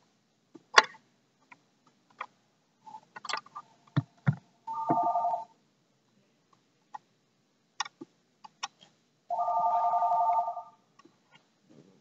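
A telephone ringing twice, each ring about a second long, with a warbling tone of several pitches. Between the rings come scattered metal clicks and taps from a wrench on the key machine's cutter-wheel nut and from the wheel being handled.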